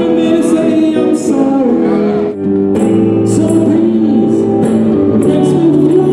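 Live yacht-rock song played by a duo on electric guitars, with a man singing over the guitars; the music drops out for a moment a little over two seconds in.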